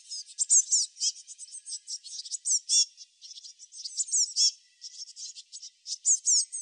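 Small birds chirping: a dense run of quick, high-pitched chirps, many of them sliding down in pitch.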